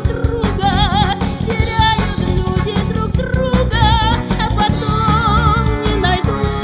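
Pop song backing track with a drum kit and a woman's singing voice holding notes with vibrato.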